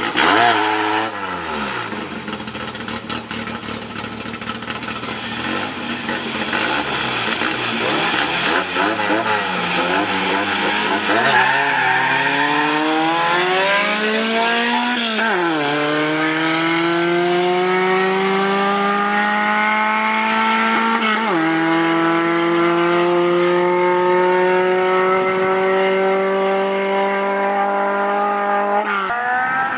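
VAZ (Lada Samara) hatchback engine at full throttle in a drag race, pulling hard from the launch through the gears. The pitch climbs steadily in each gear and drops at each upshift: about halfway in, again some six seconds later, and once more near the end.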